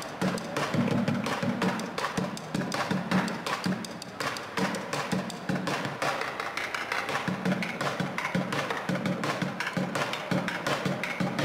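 Bucket drumming: drumsticks beating fast, dense patterns on upturned plastic buckets, deep hollow thuds from the bucket heads mixed with sharp clicks of stick on plastic.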